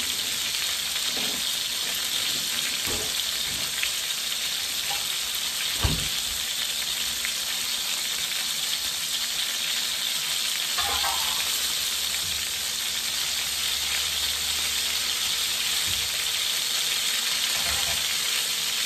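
Cod fillets frying in oil in a pan, a steady sizzle with a sharp knock about six seconds in and a few fainter knocks and clatter of kitchen handling.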